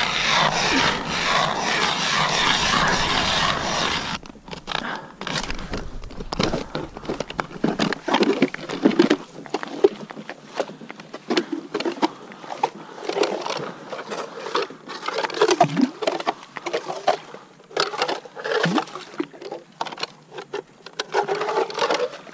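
Hand-cranked ice auger boring through lake ice. For about the first four seconds there is a steady grinding, then irregular scraping and crunching strokes of the blade against ice and shavings.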